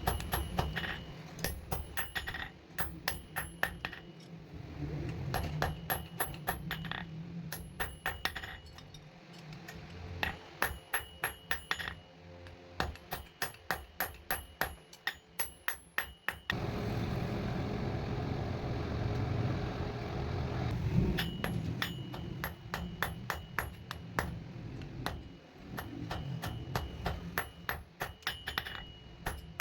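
Blacksmith's hammer striking iron on an anvil in quick runs of ringing blows, about three to four a second, with short pauses between runs. Partway through, the blows stop for several seconds and a steady rushing noise takes their place.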